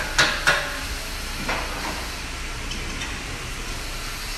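Sharp metal knocks of tools as a mechanic works under the car's rear suspension: three in quick succession, then one more about a second and a half in. A steady hiss runs underneath.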